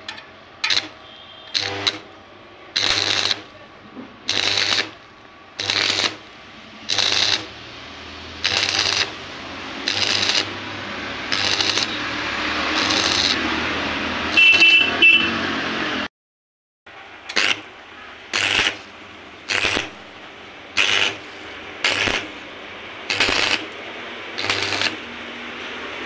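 Electric stick (arc) welder striking and burning in short crackling bursts about once a second, with a steadier stretch of arc crackle around the middle, as a rod is welded onto the old starter bearing's inner race so the race can be pulled off. A short high-pitched tone sounds about halfway through, and the sound cuts out briefly just after.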